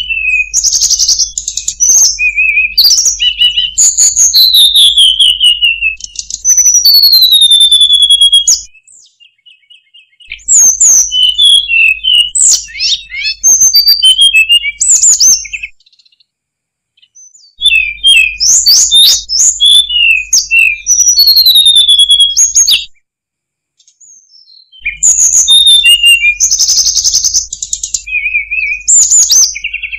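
Hill blue flycatcher (tledekan gunung) singing loud, fast phrases of high, varied whistles, downward-slurred notes and quick trills. It sings in bouts of about five to eight seconds, broken by pauses of a second or two.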